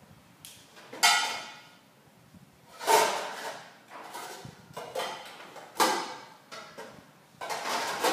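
Metal mixing bowl and utensils clattering and scraping against a baking pan on a table: several sharp clanks with short rattles after them, the loudest about a second in, about three seconds in and near six seconds, with smaller knocks between.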